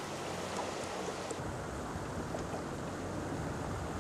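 Swift floodwater rushing and churning, an even hiss. About a second and a half in, the sound turns duller and lower, with a small boat's outboard motor running on the flooded river.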